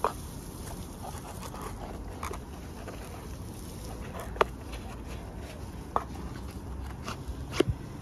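Cardboard lighter gift box handled with gloved hands on a stone countertop: quiet handling noise with a few sharp taps and clicks. The loudest is a quick double click near the end, as the box is closed.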